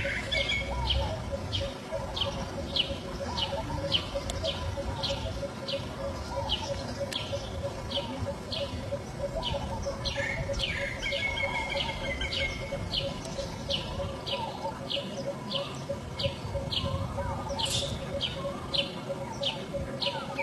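A bird chirping over and over, about two short high chirps a second, with a held whistle-like note about ten seconds in and again near the end.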